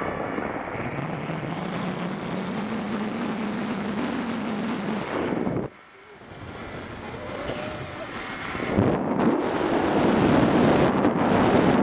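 Wind rushing over the microphone of a camera riding a zip line, with the trolley's pulleys whirring along the steel cable as a low hum for the first few seconds. The sound drops away suddenly about halfway through, then the wind rush builds back up and is loudest near the end.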